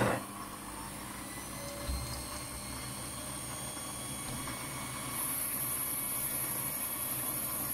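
Mini lathe running, its motor and spindle humming steadily while a boring bar is fed into a Delrin bushing. About five seconds in a high whine joins and the sound gets a little louder.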